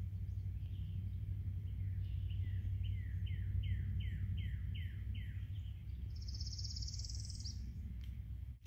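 Woodland birdsong over a steady low background rumble. A series of about eight clear notes, each sliding downward, is followed a second later by a higher, buzzy trill that rises in pitch.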